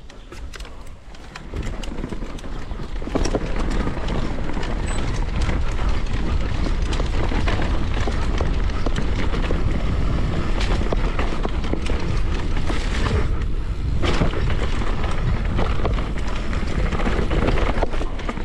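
Downhill mountain bike riding a rough trail: wind buffeting the microphone, tyres on dirt and the chain and frame rattling over bumps. The noise builds over the first couple of seconds as the bike picks up speed, then stays loud and steady.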